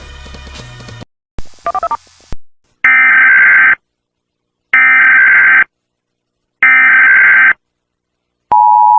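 Music cuts off about a second in. Then come three identical bursts of Emergency Alert System SAME header data, each just under a second long with equal gaps between them. Near the end the steady two-tone EAS attention signal begins, marking the start of an emergency alert broadcast.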